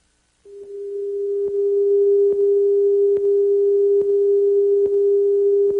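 Television station test tone accompanying colour bars after sign-off: one steady pure tone that starts about half a second in and swells to full level within a second or so. Faint ticks recur a little more than once a second.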